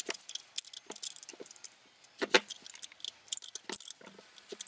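A 13 mm spanner clinking against the stainless steel nuts and metal housing of a solar screw pump as the housing bolts are tightened: quick, irregular metallic clicks, with one louder clink a little over two seconds in.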